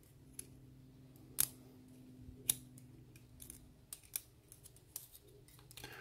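Steel tweezers clicking and scraping against a lock cylinder as pins and springs are picked out of its chambers: scattered faint metal clicks, two sharper ones about one and a half and two and a half seconds in, over a faint low hum.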